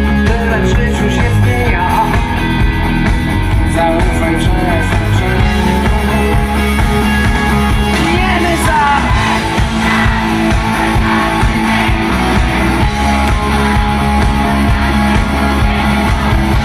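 Live rock band playing over a festival PA: electric guitars and a singer.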